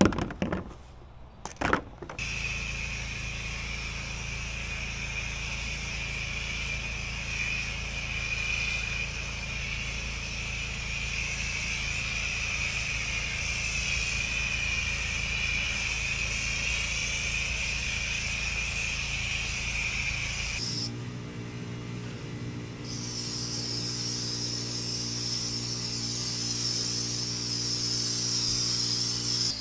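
High-pressure water spraying from a pressure washer with a steady hiss, its motor running underneath. Two sharp clicks come in the first two seconds before the spray starts, and the spray and motor change in pitch about twenty seconds in.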